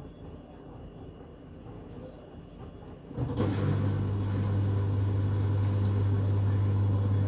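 LG washing machine running with a quiet low rumble, then about three seconds in a loud, steady low hum sets in suddenly and holds.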